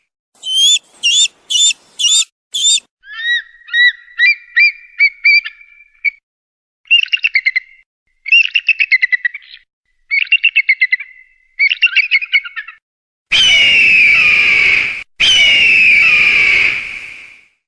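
Bird calls offered as eagle sounds. First come five quick high rising whistles, then a series of short piping notes and three chattering trills, broken by short silences. Near the end there are two long, loud, harsh descending screams.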